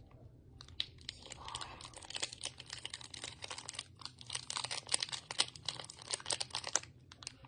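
Plastic wrapper of a protein bar crinkling as it is handled and turned in the hands: a rapid, irregular patter of small crackles.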